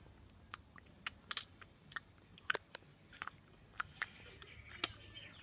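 Faint, irregular sharp clicks, about a dozen, scattered over a quiet background.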